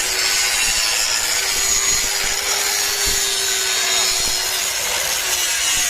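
Angle grinder grinding down the root pass of a pipeline weld: a steady harsh grinding noise with a thin motor tone underneath.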